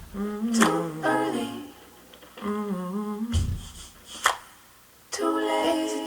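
Female voice humming a wordless melody in short, gliding phrases, with sharp finger snaps and a low thud keeping the beat.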